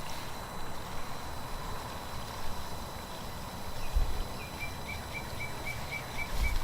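Steady outdoor background noise with two low thumps. In the second half a faint high chirp repeats about four times a second.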